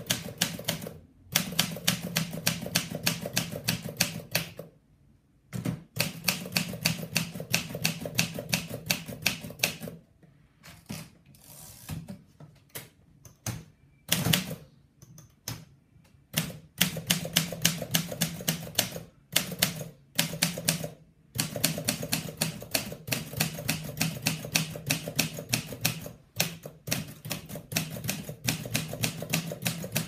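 Olympia de Luxe portable manual typewriter being typed on: runs of rapid key strikes, several a second, broken by short pauses, with a quieter stretch of sparser strikes about a third of the way through.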